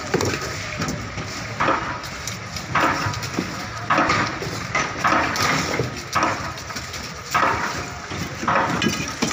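People's voices mixed with the general bustle of a busy fishing harbour, coming in uneven bursts about once a second.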